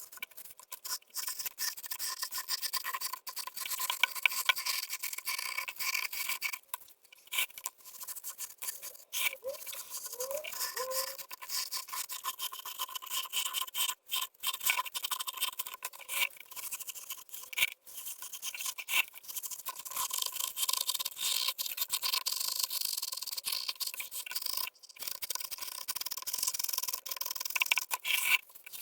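Gritty scraping of a trowel working wet concrete around the anchor rods, in quick irregular strokes with frequent short pauses.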